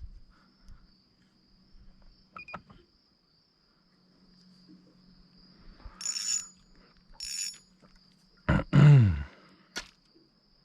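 A steady high insect drone, with a few short clicks and two brief whirring bursts from a fishing rod and reel being cast at snags. Near the end comes a loud, short sound that falls in pitch.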